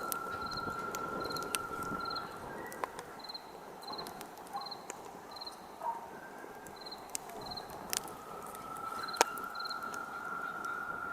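Campfire crackling, with scattered sharp pops, the loudest about eight and nine seconds in. Crickets chirp in short regular pulses, and a steady high-pitched tone fades out about two seconds in and comes back about eight seconds in.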